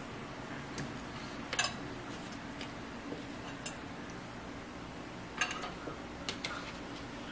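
A fork clinking against a plate while eating: a handful of sharp, separate clinks, the loudest about a second and a half in and a small cluster a little past five seconds, over a low steady hum.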